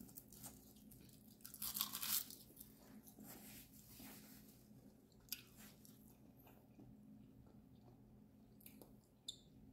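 A person chewing food, with a crisp crunching burst about two seconds in and a few small clicks later.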